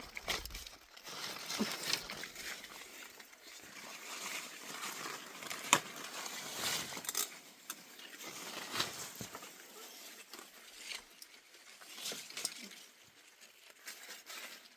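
Rustling and crackling of leaves and twigs being handled, with scattered sharp snaps and clicks at uneven intervals.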